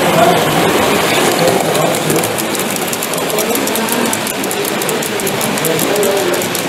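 Model train running on a layout, with a fast, even clicking over the track from about two seconds in, over a steady exhibition-hall din.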